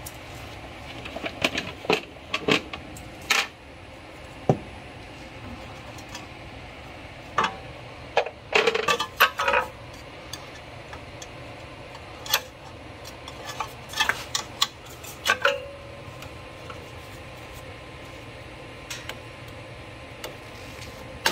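Scattered metal clinks and clatters of a sheet-metal air cleaner base plate and its hardware being handled and lifted off a mower engine's carburetor, with busier runs of clinks around the middle and about two-thirds through.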